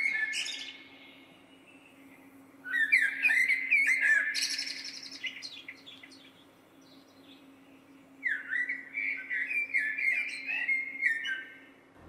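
Recorded song of a common blackbird: three warbling phrases, each two to three seconds long and separated by pauses, the middle one ending in higher twittering notes. A faint steady hum lies underneath.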